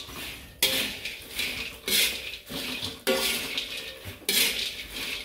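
Metal spatula scraping and clanking against a metal wok as popcorn is stirred and turned, one stroke roughly every second and a quarter.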